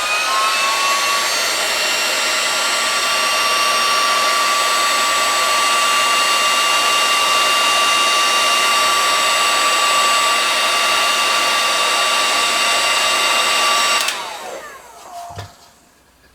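Heat gun running at a steady pitch, its fan motor giving a steady whine over the rush of air. It is switched off about fourteen seconds in and winds down with a falling whine.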